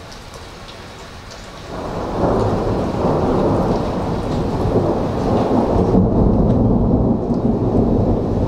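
Rain falling steadily, then about two seconds in a loud roll of thunder builds and keeps rumbling.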